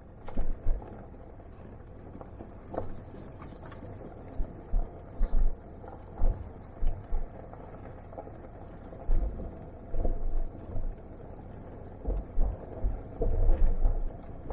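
Vehicle driving on a rough dirt road, heard from inside the cab: a steady rumble with irregular low thumps from bumps and occasional light clicks and rattles.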